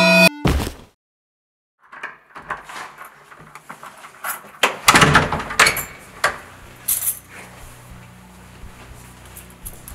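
Synth music cuts off with a thump, then after a second of silence keys jangle and a door is handled, a run of small clicks and knocks that is loudest about five seconds in, over a faint low hum.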